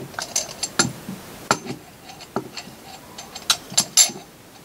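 About a dozen irregular sharp metallic clinks and knocks, the loudest near the end, as a turbocharger's centre section is worked against its cast-iron turbine housing and VTG vane ring to seat it. The metal-on-metal knocking of parts that do not yet drop into place.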